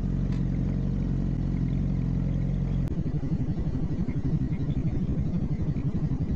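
Motorcycle engine running with a steady note, which changes about three seconds in to an uneven, pulsing low rumble.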